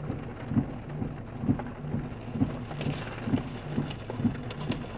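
Heavy rain mixed with hail drumming on a car's roof and windows, heard from inside the car, with scattered sharper hailstone clicks. Underneath runs a regular low thump about twice a second.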